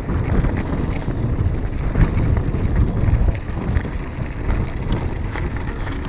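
Iron Horse Unity 3.2 mountain bike's tyres rolling over loose gravel, a steady crunching rumble scattered with small clicks and rattles, with wind buffeting the microphone.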